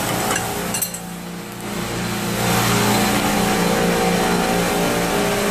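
Steady hum of running chiller-room machinery, with a few metal tool clinks in the first second as a screwdriver is pulled out of a bucket of wrenches.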